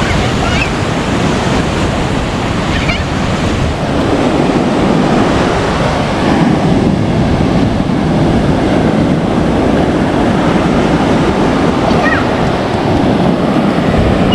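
Rough, typhoon-driven surf washing continuously onto a beach, with wind buffeting the microphone.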